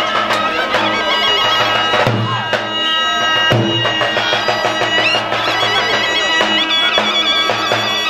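Albanian folk dance music: a reedy wind instrument plays an ornamented, wavering melody over a steady low drone, with strokes on a large double-headed drum.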